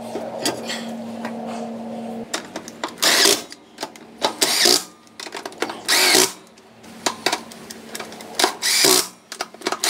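Cordless power tool run in several short bursts on a truck's wheel nuts, spinning them on and tightening them. A steady hum in the first two seconds stops about two seconds in.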